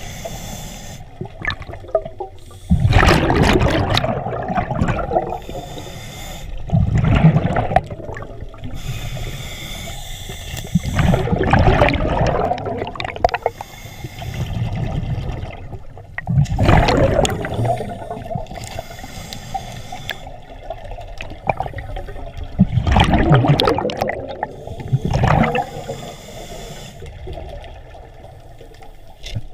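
Scuba diver breathing through a regulator underwater: a loud rush of exhaled bubbles about every five to six seconds, with a fainter hiss between them.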